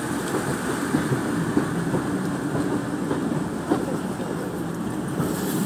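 Railway passenger coaches rolling past below: a steady rumble of wheels on the rails, with an occasional click.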